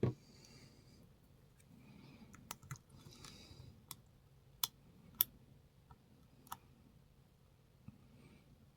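Faint, irregular clicks and light scraping of a lock pick working the pins inside a pin-tumbler challenge lock under tension, with about eight separate clicks.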